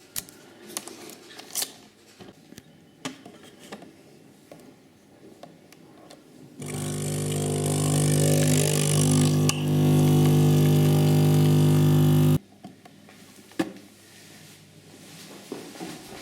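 Coffee machine's pump running with a loud steady hum for about six seconds, getting louder partway through and stopping abruptly. Light clicks and knocks come before and after it.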